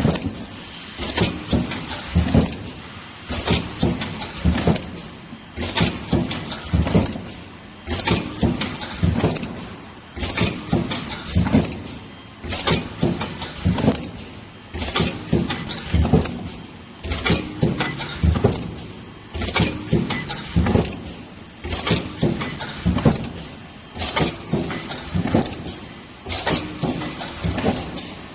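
Two-head projection welding machine running its automatic cycle. A burst of metallic clanks, clicks and air hiss repeats about every two seconds as parts are fed, clamped and welded.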